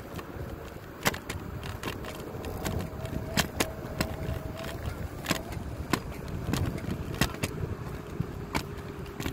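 Wheels rolling along a concrete path: a steady rumble broken by sharp clicks at uneven intervals as they pass over the seams in the pavement.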